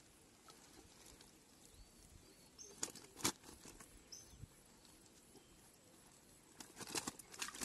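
Quiet outdoor ambience with two short, faint bird chirps. A couple of sharp clicks come about three seconds in, and near the end a run of rustling and clicking handling noises starts.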